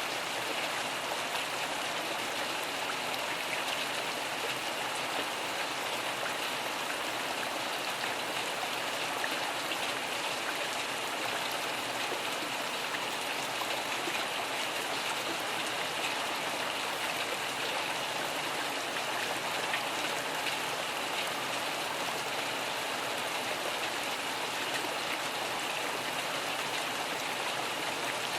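Steady rain, an even hiss of falling water with fine drop ticks throughout.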